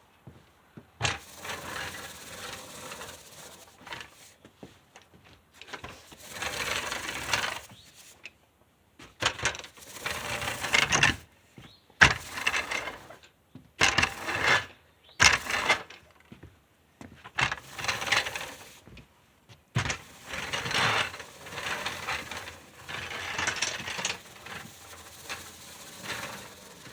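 Pivoting push broom pushed back and forth in repeated strokes. Its bristles scrape the ground while its wheel-driven gears turn the brush heads, in scrubbing bursts of a second or more with short pauses between.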